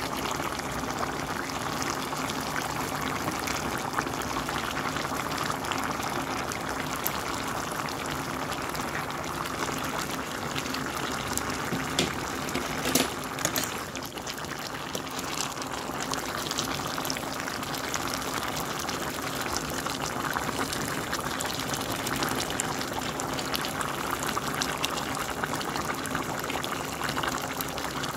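Pan of green beans, potatoes and ham hock in broth bubbling steadily at a simmer, over a faint low hum. Two short knocks about halfway through.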